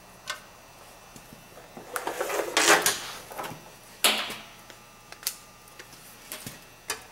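A digital multimeter and its test leads being handled: a rustle and scrape as they are picked up and moved, then one sharp click and a few lighter clicks as the meter is set to measure resistance.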